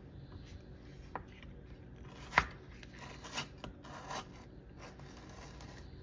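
Aloe vera gel being separated from the leaf skin with a metal spoon and fingers on a wooden cutting board: soft scraping and wet handling noises with a few sharp clicks, the loudest about two and a half seconds in.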